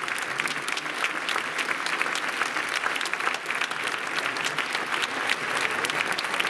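Audience applauding: dense, steady clapping with no music.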